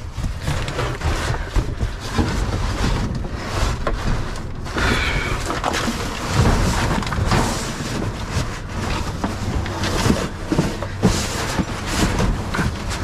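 Trash and boxes being rummaged and shifted inside a dumpster: rustling and clattering with many small knocks, over a low rumble.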